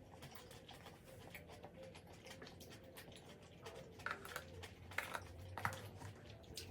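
Soft, faint eating sounds of a person eating: chewing with many small wet clicks, with a few louder clicks in the second half.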